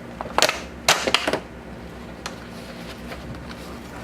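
Packaging of a sharpening kit being handled and opened: a quick run of sharp clicks and rustles in the first second and a half, then a single click a little later.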